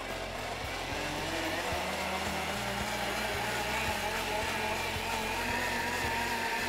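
Hamilton Beach Professional juicer mixer grinder's 1400-watt motor running on its blend preset, blending a thick smoothie of banana, berries, ice cream and milk. It gets louder over the first second, then runs steadily, its whine slowly creeping up in pitch.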